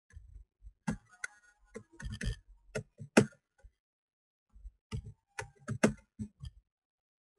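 Computer keyboard typing: irregular key clicks in two runs, the first about a second in and the second starting past the middle, with a short pause between them.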